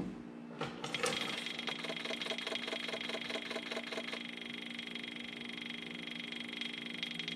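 John Deere 35G mini excavator's diesel engine starting about a second in, with a fast uneven pulse for a few seconds, then settling into a steady idle about four seconds in. It is run to fill the new oil filter after an oil change.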